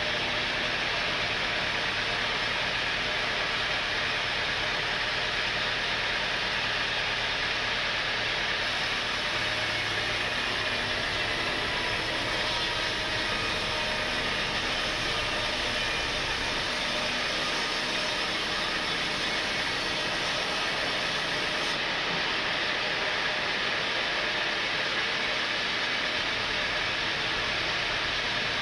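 Sawmill saw running steadily, a dense even hiss with a faint whine that holds unchanged throughout.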